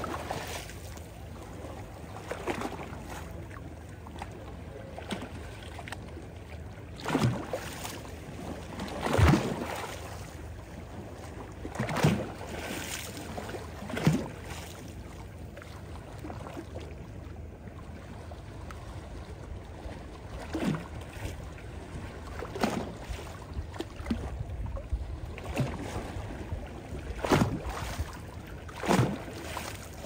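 Small waves of a calm sea lapping against a stony shore: a steady wash with short splashes every two to three seconds, fewer in the middle.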